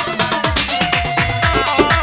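Instrumental dance music: a melody line over a fast, steady drum beat.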